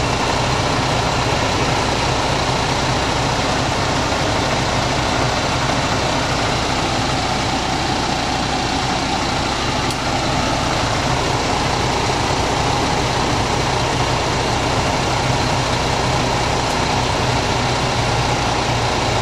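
MAN TGS truck's diesel engine idling steadily with the air-conditioning compressor running, a loud, even mechanical drone mixed with rushing air noise that holds unchanged throughout.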